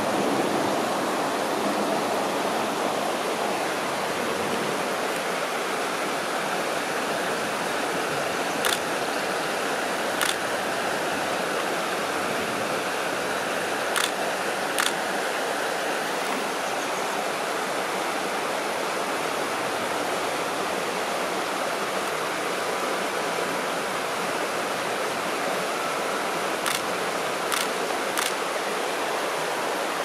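Steady rushing of river water, with about seven brief sharp clicks scattered through.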